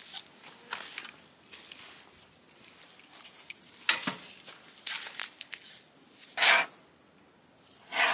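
Aerosol can of fire-block foam sealant being handled and sprayed into gaps in short hisses, with a few brief knocks and rustles; the longest hiss comes about six and a half seconds in.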